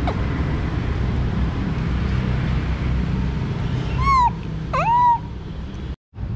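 A baby monkey gives two short, arched, cry-like calls about four and five seconds in, over a steady low rumble, with a sharp click at the start.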